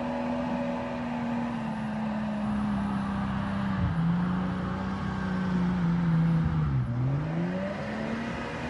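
Off-road 4x4 truck's engine held at high revs, stepping down a little about four seconds in, then dropping sharply near seven seconds and revving straight back up.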